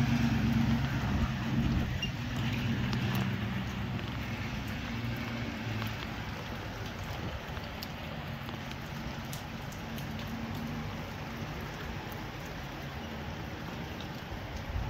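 Steady rain falling, with scattered drop ticks. A vehicle engine hums under it at first and fades away over the first six seconds or so.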